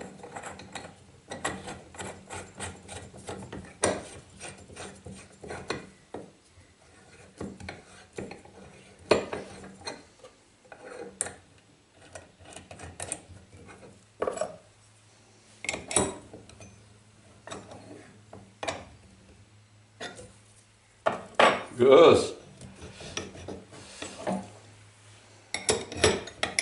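Steel parts handled and fitted together on a wooden workbench: irregular clinks, knocks and scrapes as a steel bar is set into a bracket on a steel plate. Near the end a wrench clicks on a nut as it is tightened.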